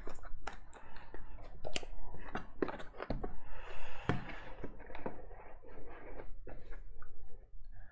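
Cardboard game box, paper rulebooks and scoring pad being handled and packed away: a string of light taps and knocks, with a sliding rustle of cardboard and a firmer knock about four seconds in.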